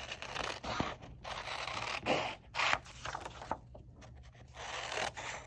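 Scissors cutting through construction paper: a run of irregular scraping cuts with short pauses between them as the paper is turned along the curve.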